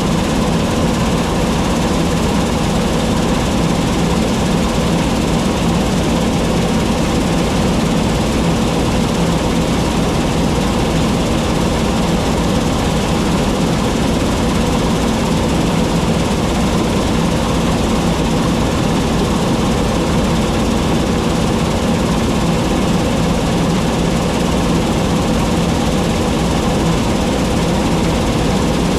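John Deere T660 combine harvester running at a constant engine speed, a loud, unchanging drone with no let-up.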